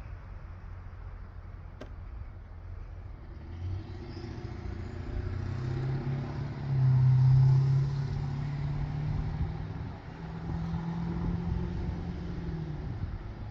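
A motor vehicle passing, its engine hum building to its loudest about halfway through and fading away near the end, over a steady low wind rumble on the microphone. A single sharp click comes about two seconds in.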